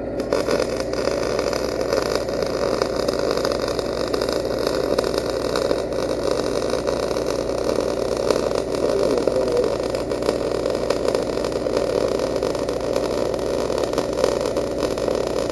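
MIG welding arc in short-circuit transfer, crackling and frying steadily as a bead is laid, with the arc struck at the start and broken near the end. An engine-drive welder runs steadily underneath, powering the wire feeder.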